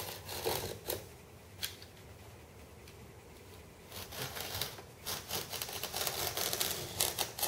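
Snap-off knife blade drawn along a steel ruler, scratching through the fibreglass skin of a moulded wing in short repeated strokes, with the glass nearly cut through. A few strokes come at the start, then a lull of about three seconds, then a fast run of strokes.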